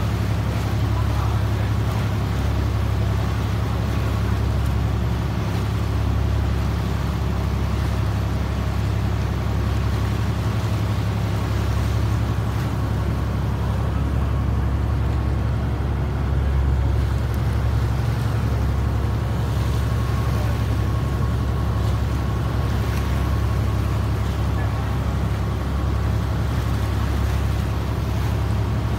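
Harbour tour boat's engine running at a steady low drone while under way, with water rushing and splashing along the hull.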